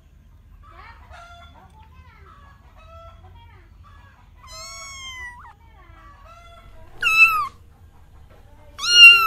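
A cat meowing three times: one longer, level meow about halfway through, then two loud, short meows that fall in pitch near the end.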